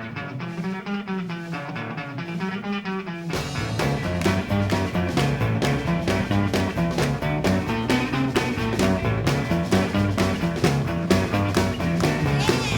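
Background rock music: a plucked guitar passage that the full band with drums joins about three seconds in, with a steady beat.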